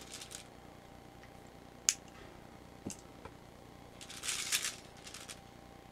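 Plastic 8 mm BBs rattling in their bottle as fingers dig into them, with a few sharp clicks as a brass revolver cartridge is lifted off a scale and handled. The loudest click comes about two seconds in; the rattling comes near the end.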